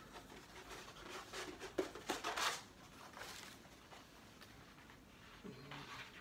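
Rustling and crackling of a large rolled art print on cotton paper as it is unrolled and flattened by hand, the stiff sheet crinkling in uneven bursts, loudest about two seconds in.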